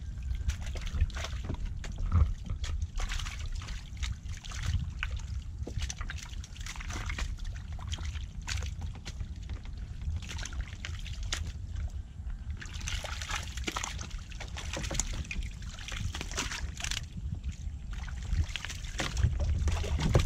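Water splashing, trickling and sloshing in many small, irregular splashes and drips, busiest a little past the middle, over a steady low rumble.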